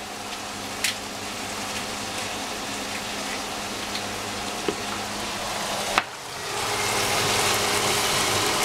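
Cabbage, capsicum and zucchini sizzling as they fry in a pan. There is a sharp click about six seconds in, and the sizzle gets louder after it.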